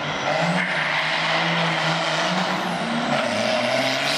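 A nitrous-fed 5.9 Cummins 12-valve turbo diesel pickup and a Trailblazer SS launching together down a drag strip, engines at full throttle. The engine note climbs, dips briefly about three seconds in, then climbs again.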